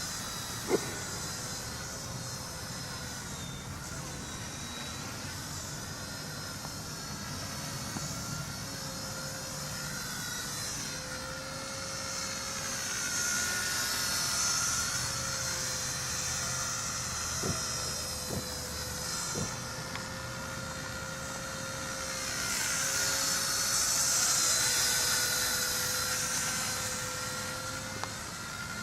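Blade mCPx micro RC helicopter flying: a high electric whine from its motors and rotors that keeps rising and falling in pitch as it manoeuvres, swelling louder twice. A few sharp clicks stand out, one about a second in and three close together past the middle.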